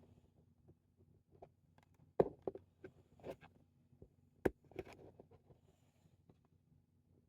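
Trading cards and pack wrappers being handled: a cluster of light taps and clicks in the middle, over faint room hum.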